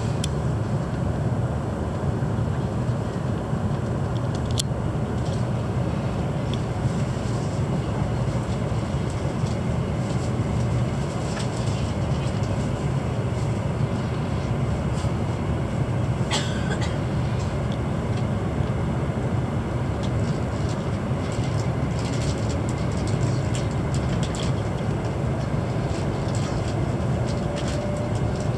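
Hokuriku Shinkansen train running, heard inside the passenger car: a steady low rumble with a few faint clicks and rattles, and a faint rising whine near the end.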